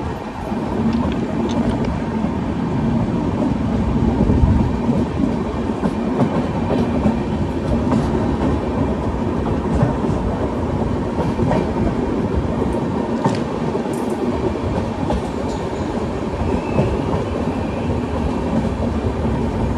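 Indian Railways passenger train running along the track, heard from the side of a moving coach: a steady rumble of wheels on rail with occasional faint clicks.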